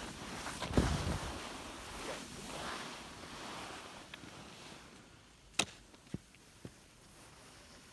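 Rushing noise of wind and skis sliding on snow that fades away over the first five seconds, with a low thump about a second in. Later come three sharp clicks about half a second apart.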